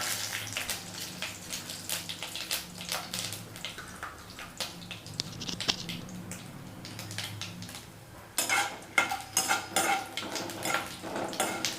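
Metal spoon clinking and scraping against a kadai, stirring dried red chillies with mustard seeds and urad dal frying in a little hot oil. The clatter gets busier and louder about eight seconds in.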